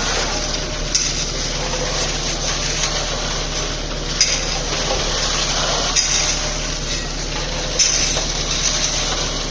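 Steady churning and scraping of wet concrete and gravel being mixed and shovelled, over the constant low hum of a running machine, with a few scattered metal knocks.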